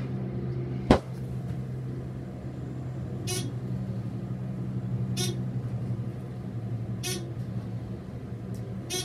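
Traction elevator car travelling down with a steady low hum. A sharp click comes about a second in, then a short whoosh about every two seconds as the car passes each floor.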